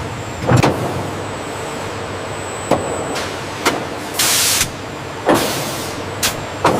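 Industrial machinery running with a steady noise, broken by several short knocks and a brief loud hiss about four seconds in.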